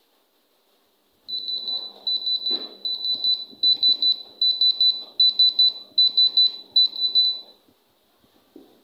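Diamond Selector II gem tester beeping in rapid pulses of one high tone, in about eight short bursts a little under a second apart, as its probe is held against a rough sapphire. The beeping starts about a second in and stops about a second before the end.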